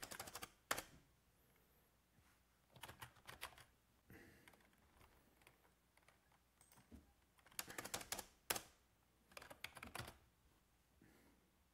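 Faint computer keyboard typing in several short bursts of keystrokes, with pauses between them.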